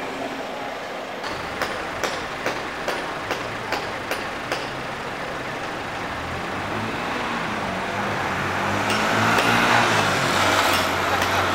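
Fire engine's motor running as it pulls out of the station, growing louder in the second half. Earlier, a row of regular clicks comes about two and a half a second.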